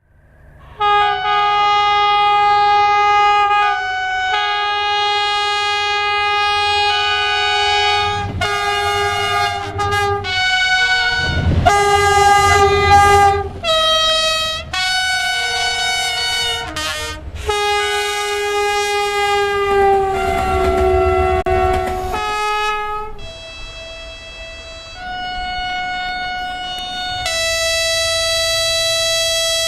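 A run of train horns sounding one after another, each a long sustained chord of several tones, the chord and pitch changing every few seconds as one locomotive or railcar horn gives way to the next. Twice, about a third of the way in and again about two thirds in, a train's low rumble runs under the horns.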